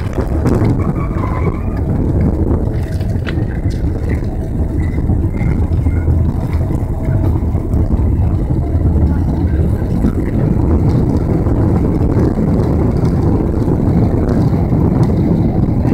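Boeing 777's landing roll heard from inside the cabin: a loud, steady rumble of engines and wheels on the runway just after touchdown, with the spoilers up. There is a single sharp knock about three seconds in.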